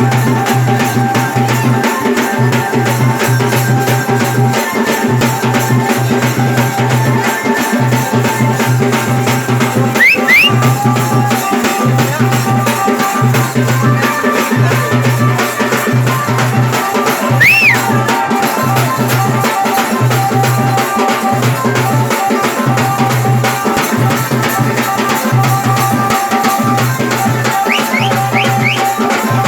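Saura tribal folk dance music: drums and rattles keep up a fast, steady rhythm over held tones, with a few short high gliding notes now and then.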